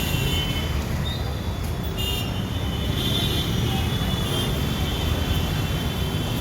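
Steady low rumble of road traffic, with a faint high thin tone coming in about two seconds in.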